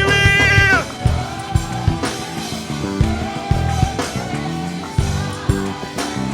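Live gospel worship band music: a singer's held note on "I" ends under a second in, then the band plays on with a stepping bass line, keyboard chords and steady drum hits.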